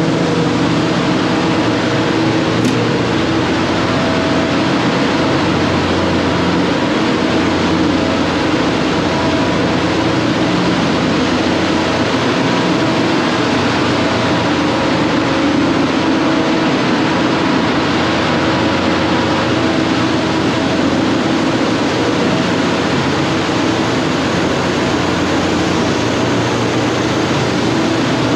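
Steady loud drone of a tanker's engine room, several steady hums over dense machinery noise. The main engine is stopped; the boilers and auxiliary machinery are running during cargo discharge.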